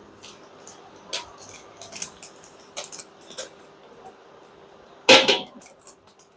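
Kitchen utensils and dishes clinking and knocking now and then during food preparation, with one louder clatter about five seconds in. A faint steady hum runs underneath.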